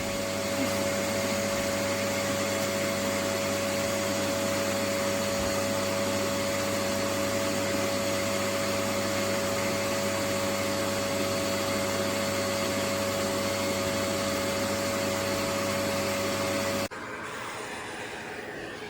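Oneisall LM2 pet grooming vacuum running with a steady hum and whir, switched off abruptly near the end.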